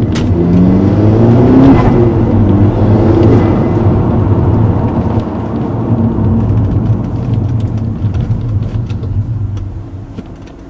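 Audi S3 8P's turbocharged 2.0-litre four-cylinder, fitted with a Revo induction kit, accelerating on the road. The engine note rises in pitch over the first few seconds, then runs steadily and eases off near the end.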